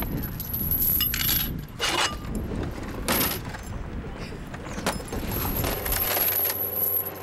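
Metal chain clinking and jangling in repeated short, sharp clinks as it is handled, over a low rumble that drops away near the end.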